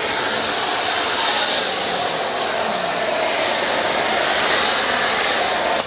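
Pressure washer spraying a truck: a loud, steady hiss of water jet that swells and fades about once a second as the spray sweeps, cutting off abruptly at the end.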